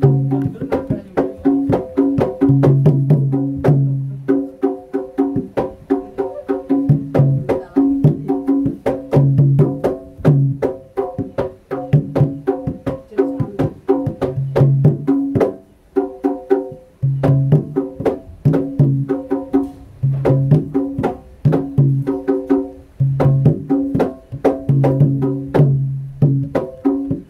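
Javanese jaranan accompaniment music: rapid sharp drum and wood-block-like strikes over repeating pitched percussion tones, with a low note recurring every second or two.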